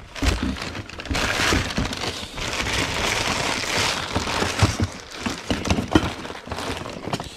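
Hands rummaging through a box of kitchenware: steady crinkling and rustling, with scattered clinks and knocks of items being shifted and two sharper knocks in the second half.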